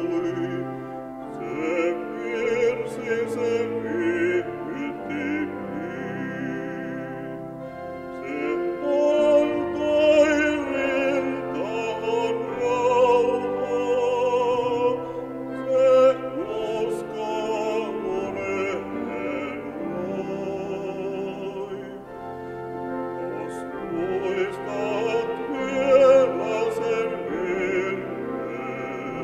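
A male solo singer sings a slow song with vibrato, accompanied by grand piano and pipe organ.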